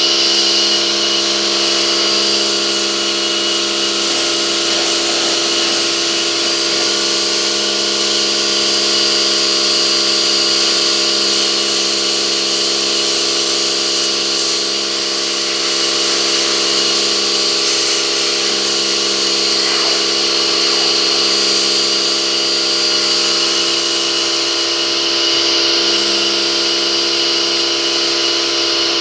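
Pressure washer running steadily: a constant motor whine over the hiss of the water spray.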